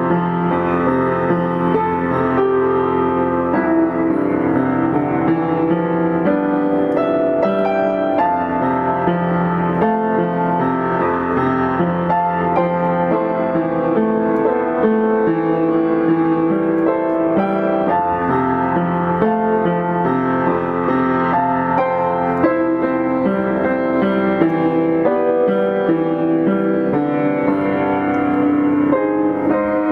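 Background piano music playing at a steady level, one held chord after another.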